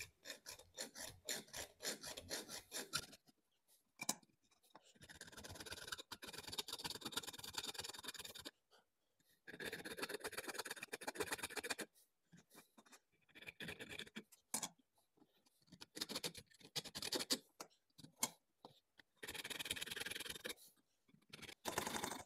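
Junior hacksaw sawing through 22 mm copper pipe with back-and-forth strokes, in several runs of a few seconds broken by short pauses.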